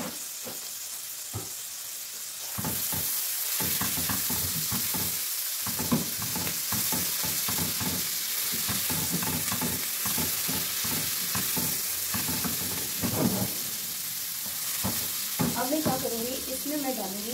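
Chopped onions and ginger-garlic paste sizzling in oil in a non-stick frying pan, stirred with a silicone spatula. The sizzle gets louder about two and a half seconds in, when the stirring starts, and runs on with many quick soft scraping strokes.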